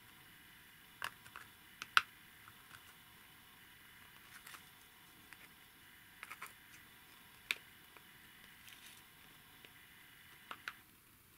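White 3D-printed plastic engine parts being handled and pushed together: scattered small clicks and taps over a faint room tone, the sharpest about two seconds in.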